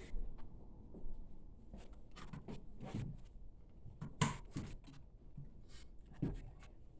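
Hands handling computer parts: scattered light clicks, taps and rustles, the sharpest click about four seconds in.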